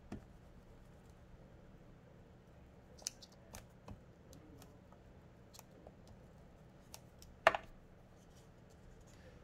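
Handling of paper pieces: scattered light clicks and paper rustles, with one sharper tap about seven and a half seconds in.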